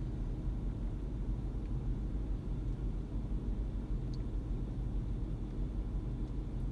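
Steady low car rumble heard inside a stationary car's cabin, with one faint tick about four seconds in.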